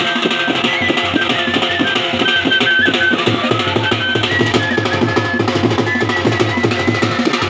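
Bhaderwahi dhol drumming in a fast, steady beat for dancing, with a high melody of short held notes played over it.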